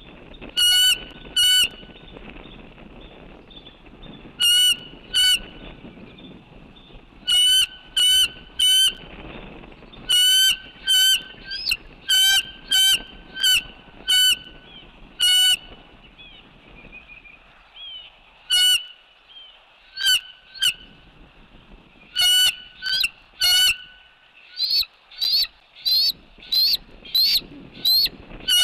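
Loud bird calls repeated in short groups of two or three throughout, with fainter high chirps in between.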